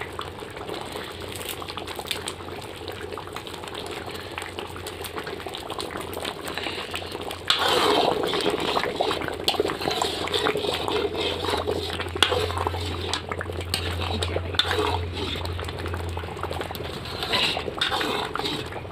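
Jute-leaf and pork broth bubbling at a rolling boil in a large aluminium kadai, stirred with a wooden spoon; the bubbling and stirring get louder about seven and a half seconds in.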